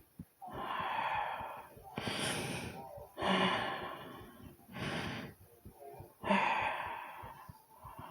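Heavy breathing close to the microphone: five loud, hissing breaths in and out, about one a second. Quick, low heartbeat thumps run underneath.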